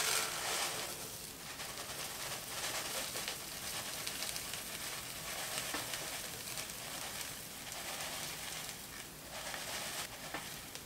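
Quick oat flakes pouring from a cardboard carton into a plastic shaker bottle: a steady dry rustle of flakes sliding out and falling into the bottle.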